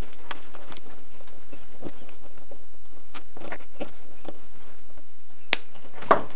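Nylon zip ties being handled and cinched around wiring, with scattered faint plastic clicks and rustles. About five and a half seconds in, flush cutters give a sharp snip as they clip off a tie's tail, followed closely by a louder knock.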